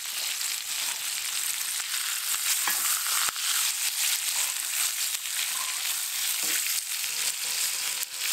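Steaks sizzling steadily in butter and garlic in a cast-iron skillet. A few sharp clicks of a fork and spatula on the pan come as the steaks are turned over.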